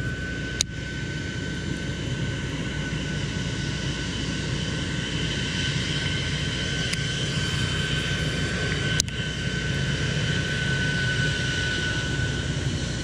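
A steady engine drone with a steady high whine over it, swelling slightly in the middle, broken by two sharp clicks, one about half a second in and one about nine seconds in.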